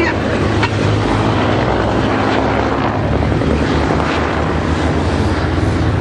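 Helicopter flying past low, its rotor and turbine making a steady, loud drone.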